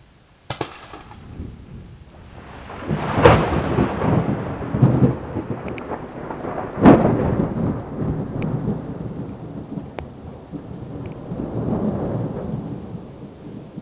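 Thunder from a close double lightning strike: a sharp crack about half a second in, then two loud claps, about three and seven seconds in, inside a long rolling rumble that eases off near the end.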